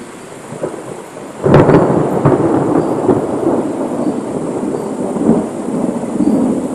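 A clap of thunder breaks about a second and a half in, then rolls on as a long rumble.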